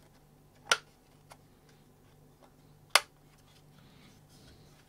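Case parts of a Tektronix 224 portable oscilloscope clicking together as the unit is put back together: two sharp clicks about two seconds apart, with a faint one between them.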